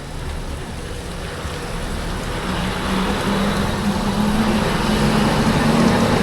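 A bus engine running and growing steadily louder as the bus draws near, its low hum coming up clearly from about halfway through.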